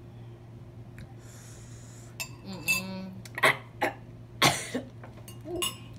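Two people eating instant noodles: slurping and a fork clinking against a bowl in a string of short sharp sounds, starting about two seconds in, with a brief vocal sound among them. Before that there is only a low steady hum.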